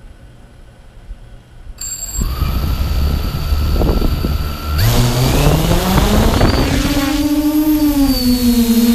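XJ470 multirotor drone's electric motors spinning up for takeoff: a motor hum that rises in pitch for about two seconds from midway, then holds as a steady drone as it lifts off. Before the spin-up, a steady high electronic whine and wind rumble on the microphone.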